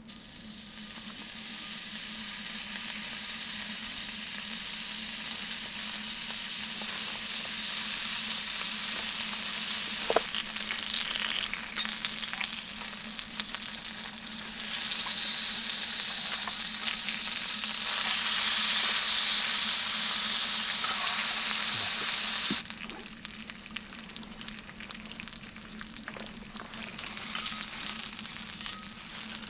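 Meat sizzling as it cooks over a campfire: a dense frying hiss that swells toward the middle and drops off sharply about 22 seconds in.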